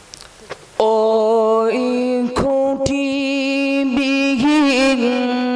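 A voice starts singing suddenly about a second in, holding long wordless notes that step up in pitch and waver. This is the vocal opening of a Bengali Islamic ghazal.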